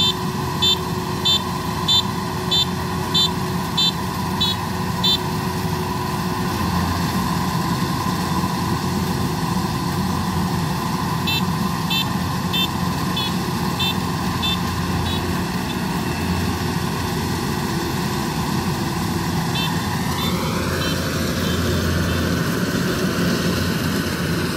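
Kubota DC-93 combine harvester's diesel engine running steadily under load, with a regular electronic beep about one and a half times a second for the first five seconds and again for a few seconds midway. Near the end the engine's pitch rises and stays higher.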